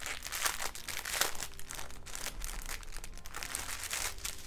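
A plastic zip bag holding small packets of diamond painting drills, crinkling in irregular bursts as it is handled.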